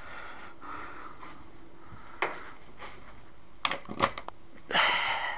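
Handling noise as an electric fan's power cord is unwound: a single light click about two seconds in, then a quick run of clicks and knocks, and a short rushing noise near the end.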